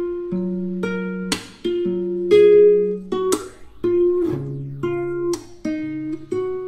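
Background music: plucked acoustic guitar over low bass notes, with a steady beat.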